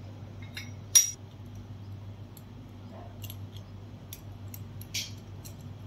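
Short metallic clicks and clinks of a chrome-plated basin mixer's handle and small screws being handled and fitted together, the sharpest about a second in and another about five seconds in. A steady low hum runs underneath.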